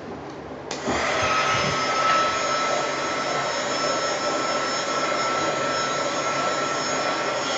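Hair dryer switched on about a second in and running steadily, a rushing blow with a high fan whine, aimed at wet acrylic pour paint to bring out air bubbles.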